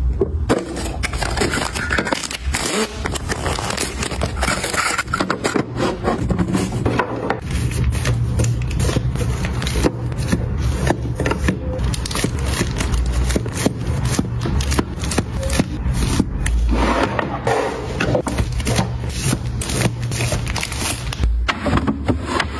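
Close-up handling of plastic storage boxes and wrapped packs: frequent taps and clicks with scraping slides as packs are set into a clear plastic bin.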